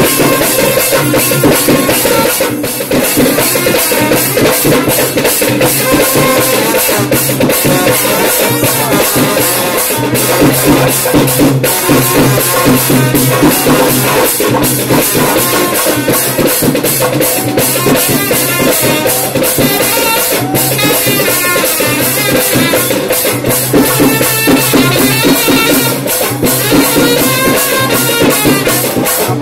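Live traditional Sri Lankan drumming accompanying a dance: fast, continuous hand-drum strokes with a wavering melodic line above them.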